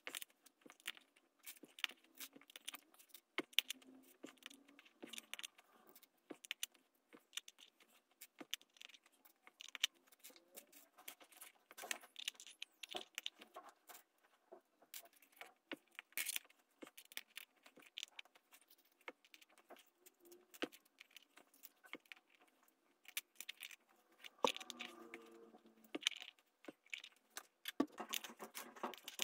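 Small plastic Lego pieces clicking and rattling as they are handled and set down, a sparse, irregular run of light clicks. A brief faint pitched sound comes in near the end.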